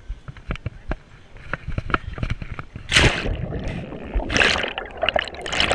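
Footsteps on the concrete pool deck picked up by a chest-mounted GoPro, then about three seconds in a loud splash as the wearer goes into the pool. Underwater sloshing and bubbling follow, with more splashes near the end.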